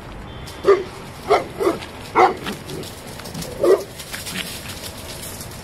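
Saint Bernard barking aggressively: about five loud, separate barks, irregularly spaced, with a longer gap before the last one.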